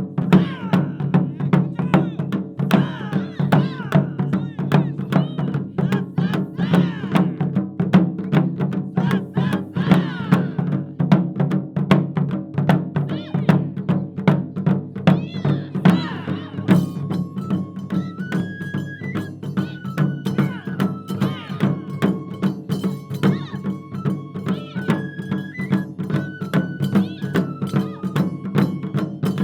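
Japanese taiko ensemble drumming in a fast, dense rhythm, sharp stick strokes over a deep drum body. A little past halfway a high melody of held, stepping notes joins the drums.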